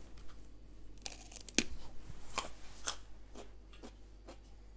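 Raw carrot being bitten and chewed: a run of crisp, sharp crunches about half a second apart, the loudest about a second and a half in.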